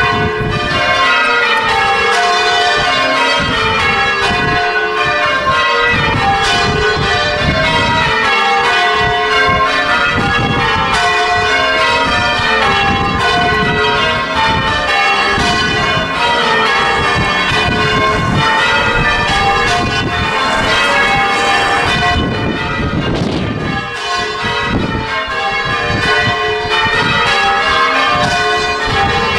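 Church bells in change ringing, struck one after another in a steady, unbroken run, their pitches stepping down in repeating rows as each change goes round.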